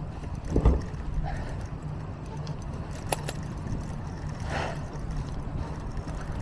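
Street noise heard from a moving bicycle: a steady low rumble of wind and road, a loud thump about half a second in, then a couple of light clicks and rattles.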